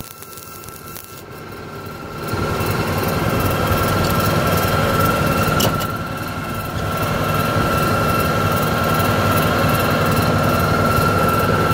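Tractor engine driving a PTO-powered welding generator, running steadily with a constant whine. It gets much louder about two seconds in, eases off briefly near the middle after a sharp click, then rises again.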